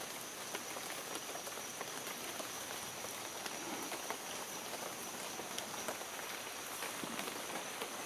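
Rain falling on rainforest leaves: a steady patter of many small drop taps, with a thin steady high-pitched tone above it.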